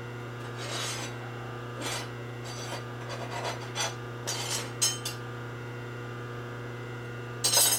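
A fine hand file rasping across a metal edge in a series of short, irregularly spaced strokes, the last one near the end the loudest, to take off a sharp corner. A steady electrical hum runs underneath.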